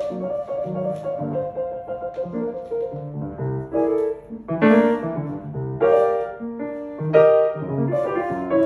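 Grand piano being played: chords and a melodic line, with a few louder struck chords in the second half.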